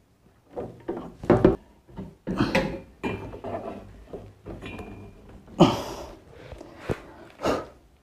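A rack-mount power amplifier's metal chassis sliding and knocking against a metal equipment rack as it is fitted in: a run of scrapes and clunks, the loudest about a second and a half in and again about five and a half seconds in.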